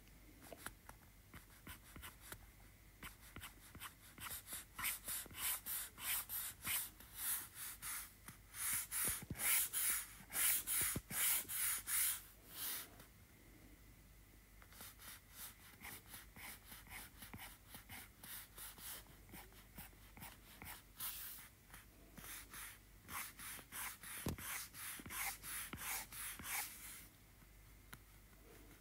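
Stylus tip scratching and tapping on an iPad Pro's glass screen in many quick, short sketching strokes. The strokes come in two runs with a brief pause about halfway.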